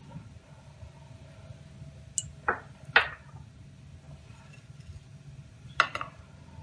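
Cooking oil heating in an aluminium pressure cooker: a low steady hum with four short, sharp clicks and taps, the loudest about three seconds in.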